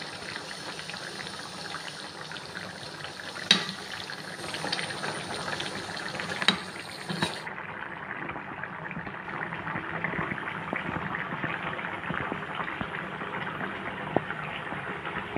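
Chicken curry bubbling at a boil in a steel kadai, a steady crackling bubbling with a few sharp knocks in the first half.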